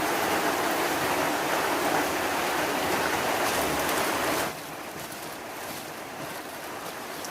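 Steady hiss of heavy rain, which drops suddenly to a quieter hiss about four and a half seconds in.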